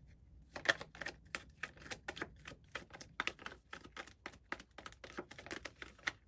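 A deck of tarot cards being shuffled by hand: a quick run of crisp card clicks and flicks, about five a second, starting about half a second in.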